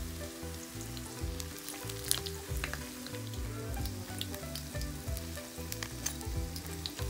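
Oil sizzling and crackling in a frying pan as lumpia (Filipino spring rolls) shallow-fry at medium heat, with many sharp pops scattered through.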